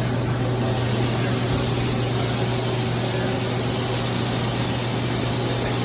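Ganesh Cyclone 32CS Swiss-type CNC lathe running: a steady low hum with an even whirring hiss over it, unchanging throughout.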